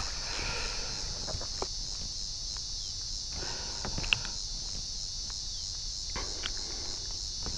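Steady high-pitched chirring of insects in summer waterside vegetation, with a few faint clicks, the sharpest about four seconds in, as a fishing lure is handled and cleared of weed.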